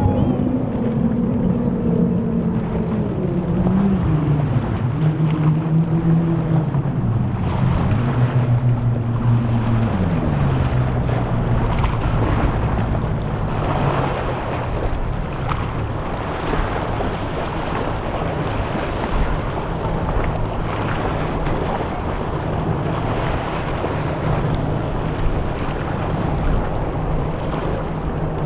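Outboard engines of fast passing boats, including a Midnight Express center console on five Mercury 400R outboards, running at speed. Their drone falls in pitch in steps over the first ten seconds as they pass and pull away. After that, wind, breaking surf and wake noise take over, with outboards running faintly underneath.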